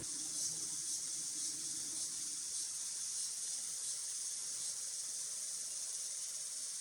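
A steady, high-pitched chorus of insects, a shrill hiss that swells slightly about every half second.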